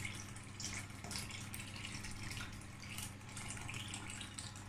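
Water pouring steadily from a plastic jug into a pot of simmering braised pork stew, splashing into the liquid.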